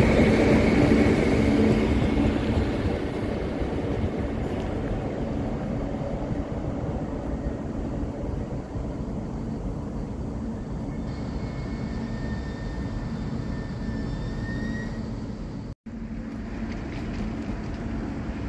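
Train running at the station: a loud rumble with a whine that eases off over the first few seconds, then a steadier, quieter rumble with faint high tones in the middle. The sound drops out for an instant near the end.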